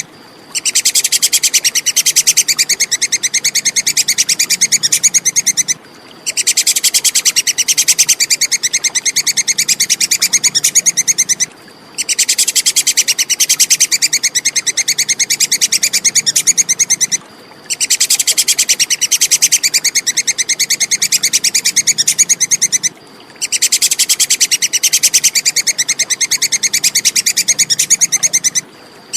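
Tupai kekes (a small squirrel) chattering: a fast run of sharp, high-pitched repeated calls in bouts of about five seconds, each broken off by a half-second pause, repeating evenly five times like a looped recording.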